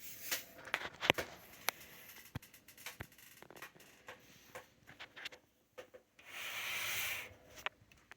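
Portable typewriter being handled: a series of sharp clicks and knocks from its parts, then a rubbing, sliding sound lasting about a second near the end.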